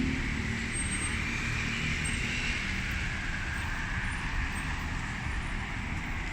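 Steady distant road traffic noise: a low rumble under a higher, even hiss.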